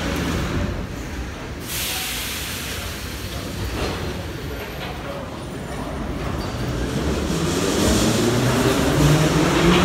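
Em-series (81-501/502/503) metro train starting to pull out of the station. A sudden hiss comes about two seconds in; then the traction motors' whine rises in pitch and grows louder as the train speeds up.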